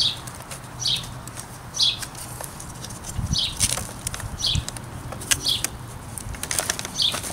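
A bird repeating a short down-slurred chirp about once a second. Under it come light clicks and rustles of hands working a rubber drive belt onto an upright vacuum's brush roller.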